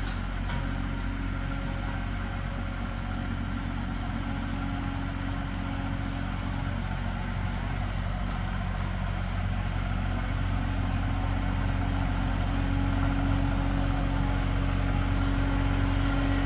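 IHI IS-30GX mini excavator's diesel engine running steadily as the machine works, growing a little louder and stronger in tone about twelve seconds in.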